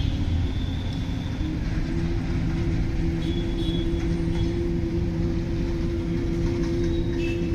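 Many people humming together in Bhramari pranayama (bee breath): a steady, low buzzing drone held on one pitch, growing a little stronger about two seconds in.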